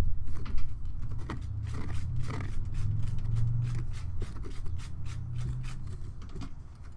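Small knife cutting and scraping through a piece of pumpkin rind and flesh: a run of short, crisp scraping strokes over a low rumble.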